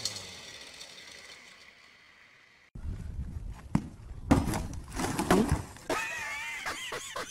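A portable basketball hoop toppling with a man hanging on it, crashing to the ground in a cluster of loud impacts, followed by high, wavering cries.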